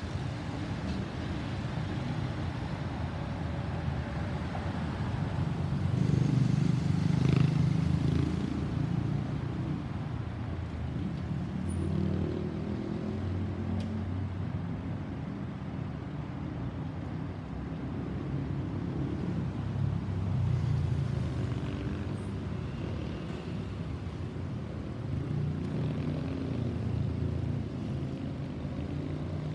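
Low, wavering rumble of an Airbus A320-216's CFM56 jet engines as the airliner climbs away, fading into the distance. It swells louder about a quarter of the way in and again about two-thirds of the way through.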